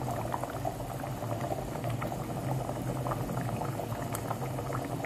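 A pot of mutton nihari stew at a rolling boil, bubbling with many small irregular pops.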